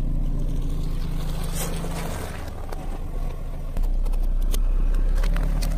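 Car engine running with a low, steady rumble that gets louder near the middle, over scattered crackles and snaps of food and a plastic sushi tray crushed under a tyre.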